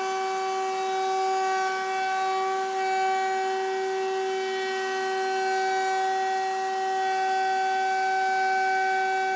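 Table-mounted router running at full speed with a steady high whine, a round-over bit cutting the edge of a cherry guitar body as it is fed past.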